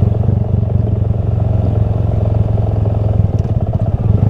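Honda Grom's 125 cc single-cylinder four-stroke engine running at low revs, its firing pulses steady and even.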